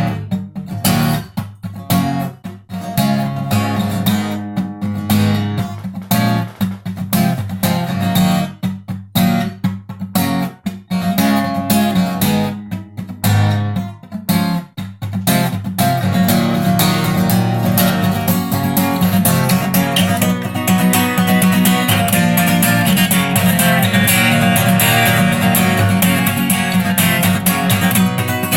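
Guitar playing an instrumental intro: chords struck one by one with short pauses, then steady continuous strumming from about halfway.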